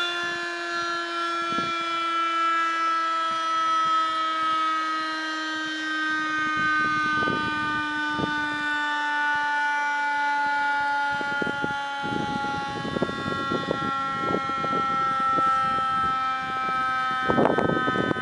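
Municipal siren sounding for a moment of silence: one long held tone with overtones that falls slowly in pitch. Bursts of rumbling noise break in over the last few seconds.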